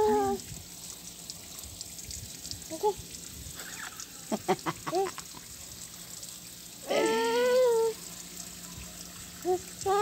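Repeated pitched animal calls: a short call at the very start, a few brief chirps around the middle, and one longer call, about a second long, about seven seconds in.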